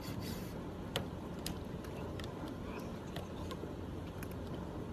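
Light metallic clicks and taps from hand tools working the sheet-metal panels of a rooftop refrigeration unit, scattered irregularly with a sharper one about a second in, over a steady low rumble of distant traffic.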